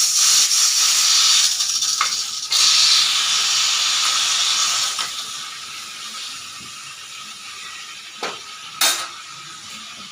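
Pressure cooker cooking rice, blowing steam through its whistle: a loud hiss with a steady tone under it that dies away over the second half. Two sharp clicks sound near the end.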